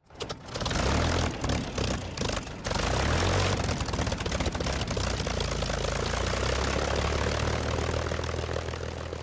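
Propeller aircraft engine running. It is uneven and sputtering for the first couple of seconds, then settles into a steady drone that begins to fade near the end.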